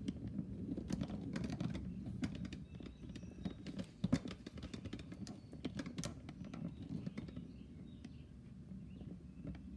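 Irregular clicks, taps and light clatter of a torque wrench and its test setup being handled and set up, busier in the first half and thinning out later.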